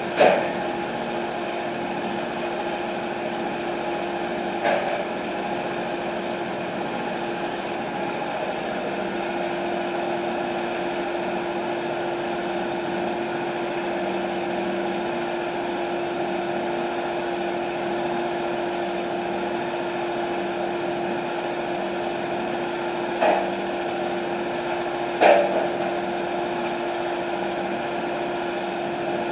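TimberKing 1220 band sawmill's engine running steadily at one constant pitch. Four sharp knocks stand out over it: one just after the start, one about five seconds in, and two close together near the end.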